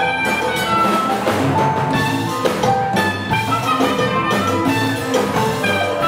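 Live Latin big-band music in an Afro-Cuban jazz style, with sustained melodic notes over a steady percussion beat.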